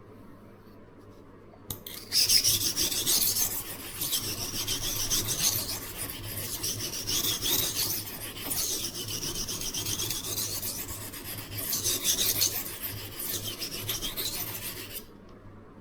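Knife blade scraping back and forth on the oil-soaked fine side of a Norton 37C silicon carbide combination stone. The stroking starts about two seconds in, runs in a steady series of strokes, and stops shortly before the end.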